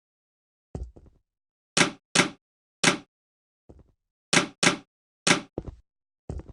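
A series of short, sharp knocks or thumps at an uneven pace, about a dozen in all, the loudest half-dozen in the middle, with dead silence between them.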